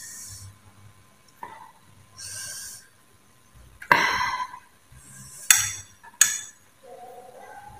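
Metal spoon clinking against a ceramic plate on a metal tray: a few sharp clinks about four, five and a half and six seconds in, with softer handling sounds of dry instant noodles and tableware between them.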